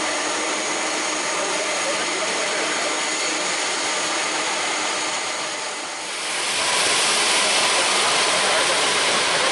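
Jet engines of a Boeing 747-400 running with a steady whine under a rushing roar. The roar swells louder about six seconds in.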